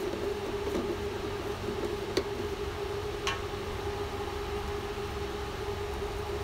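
Steady hum of a running MIG welder with a low rumble, and two light clicks about two and three seconds in as the spool hub's retaining knob comes off and a wire spool is handled.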